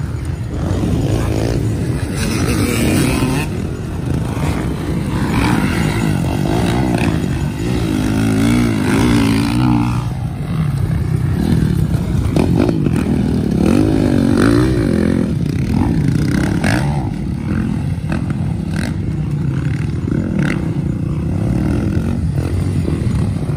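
Several motocross dirt bikes racing past, engines revving up and down repeatedly as the riders open and close the throttle, loudest as bikes pass close by.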